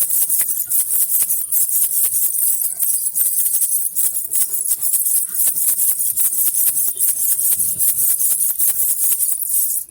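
Baby rattle (jhunjhuna) with small jingling bells, shaken continuously in a fast, even rattle.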